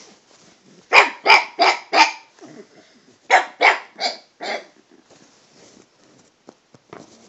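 Pug barking: two quick runs of four short, sharp barks, the first about a second in and the second about three and a half seconds in.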